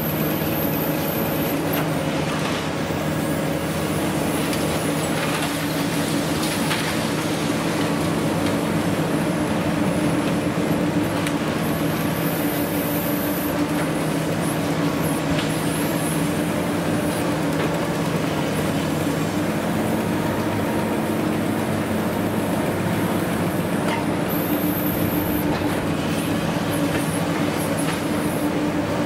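Diesel engine and hydraulics of a long-reach demolition excavator running steadily under load as its crusher jaws bite into reinforced concrete, with a few faint cracks of breaking concrete.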